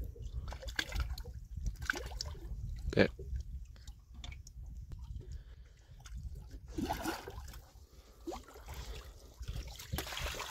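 Water sloshing and small splashes at the side of a boat as a hooked carp is drawn in near the surface, over a steady low rumble, with one sharp knock about three seconds in.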